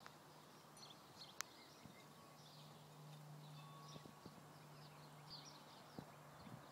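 Near silence inside a slowly moving car: a faint steady hum with a few soft clicks.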